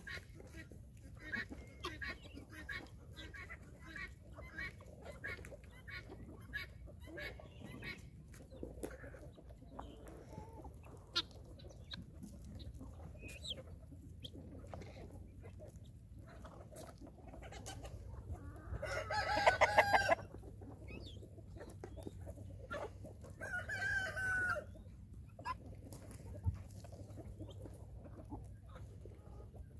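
Short clucking calls from a feeding flock of guinea fowl and chickens. About two-thirds of the way in, a rooster crows loudly, and a shorter call follows a few seconds later.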